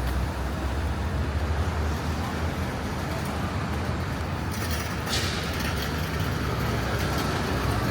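City street traffic: a steady rumble of passing road vehicles, with a short hiss about five seconds in.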